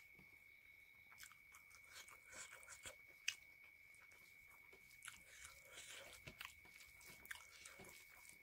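Faint, close-up eating sounds: fingers squishing and mixing rice on a plate, and chewing, as scattered soft wet clicks with a sharper click about three seconds in. A faint steady high-pitched tone sits underneath.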